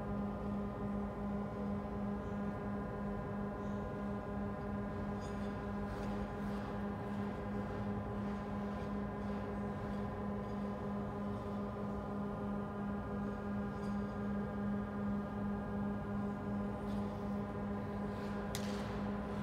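Steady machinery hum of an ice arena: a low droning tone that pulses evenly, with higher steady tones above it. Faint scrapes of skate blades on the ice come now and then, the clearest near the end.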